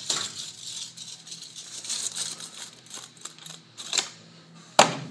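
Rustling and clicking handling noise, with two sharp knocks, one about four seconds in and a louder one near the end.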